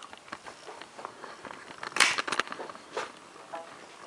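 Handling noise from a handheld camera being moved closer: scattered light clicks and rustles, with a denser, louder cluster of clicks about two seconds in.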